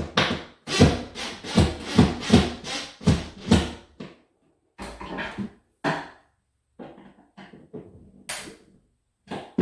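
Hand-tool work on a wooden closet organizer: a quick run of about eight sharp knocks and scrapes in the first four seconds, then scattered quieter knocks.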